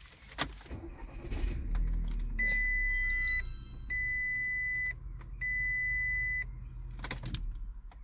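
VW Golf Mk6 1.4 TSI petrol engine heard from inside the cabin, starting about one and a half seconds in and then idling. A dashboard warning chime beeps three times, each beep about a second long with half-second gaps. A short clatter near the end as the engine is switched off.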